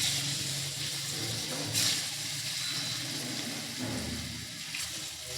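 Water running steadily, with a single sharp click about two seconds in.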